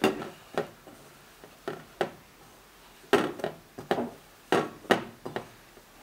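Hands squeezing and kneading raw minced meat (ground meat mixed with egg and breadcrumbs) in a stainless steel bowl: a run of short, irregular squelches and slaps, roughly one every half second to a second.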